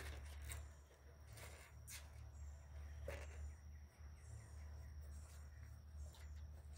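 Faint outdoor ambience: small birds chirping high over a low steady hum, with a few light knocks from the wooden stud-wall framing being handled in the first three seconds.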